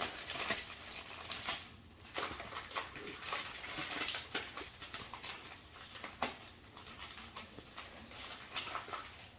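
Padded plastic mailer envelope being torn open by hand: irregular crinkling and ripping of the plastic, with sharp crackles now and then.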